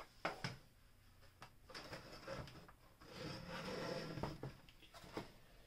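Plastic parts of a vintage toy playset being handled and fitted together: scattered light clicks and knocks, with a longer stretch of scraping and rubbing about three to four and a half seconds in.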